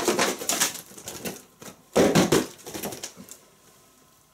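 Cardboard box being turned over and shaken, with paper envelopes rustling and sliding out onto a wooden table, a dense clatter of crinkles and taps. A louder rush of the same clatter comes about two seconds in as the letters tumble out.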